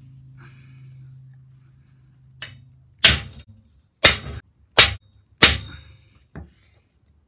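Hammer striking steel: four heavy blows roughly a second apart, with a lighter knock before them and another after. The last heavy blow leaves a short metallic ring.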